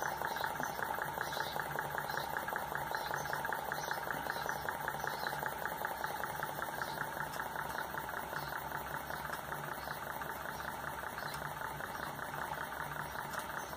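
Bernhardt model hot air engine running steadily, its crank and linkages making a fast, even clatter over a low hum.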